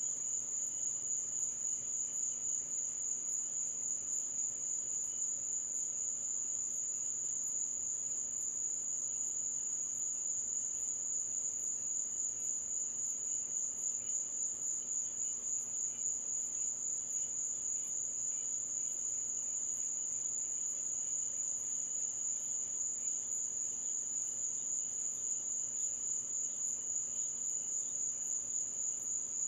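A chorus of night insects trilling: a steady, high-pitched pulsing drone that never lets up, with no thunder.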